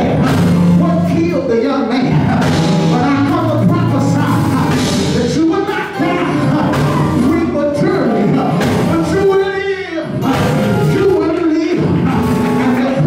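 A man singing into a microphone, amplified through the hall's speakers, over live church band accompaniment with steady held bass notes.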